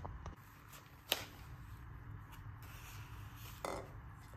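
Faint handling of plastic globe LED vanity bulbs and their cord as they are lifted out of a foam packing tray: a sharp click about a second in, a short rustle near the end, and light scraping in between.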